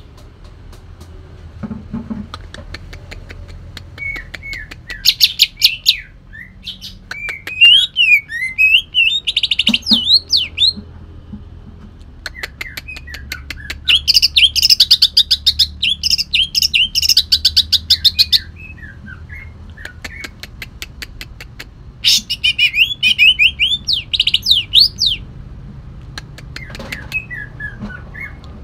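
Kalimantan cucak ijo (greater green leafbird) singing in several bouts with pauses between: rapid, harsh ticking rattles mixed with fast whistled glides, the songbird keepers' "tembakan kasar" (rough bursts), its song filled with imitations of the long-tailed shrike (cendet).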